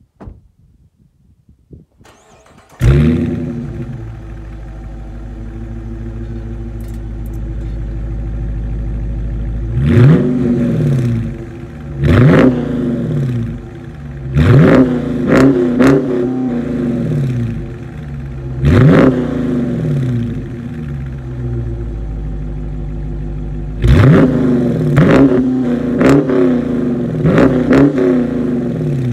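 Stock exhaust of a Dodge Challenger R/T's 5.7-litre Hemi V8: the engine starts about three seconds in, settles into an idle, then is revved in the stationary car again and again, each rev rising and falling in pitch, sometimes in quick runs of two or three blips.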